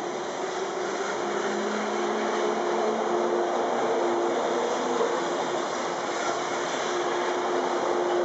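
JNR 485 series electric multiple unit pulling out of a station, its cars rolling past close by: steady running noise of wheels and traction motors with a low hum, slowly growing a little louder.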